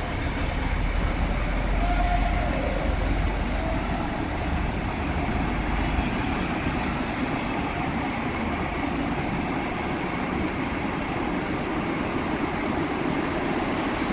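A departing train of passenger coaches rolling past and pulling away, wheels running on the rails with a deep rumble that fades after about five seconds as the last coach moves off. A brief faint high tone sounds about two seconds in.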